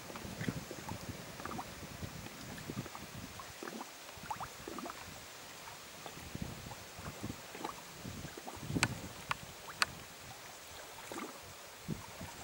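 Small sea waves lapping and splashing irregularly against the shore, over a steady faint hiss, with two sharper splashes about nine and ten seconds in.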